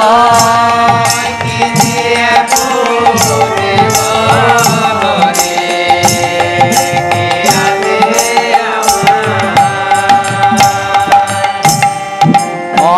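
Bengali kirtan devotional song: group voices singing over a harmonium's held reed tones, with two khol drums played in a steady beat of about two strokes a second.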